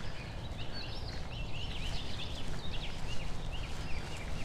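Songbirds chirping: a busy run of many short, quick chirps, over a steady low rumble.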